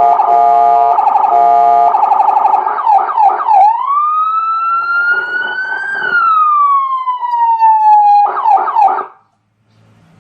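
AS820 200-watt electronic siren sounding through its speaker and stepping through tones: a rapidly pulsing horn-like tone, then quick yelp sweeps, then one slow wail rising and falling. Another short burst of fast sweeps follows, and it cuts off suddenly about nine seconds in.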